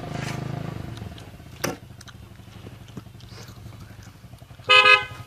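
A horse pulling a load: a low rumble that fades out in the first second, a single sharp knock, and faint even ticking. Near the end comes a short, loud, high-pitched call.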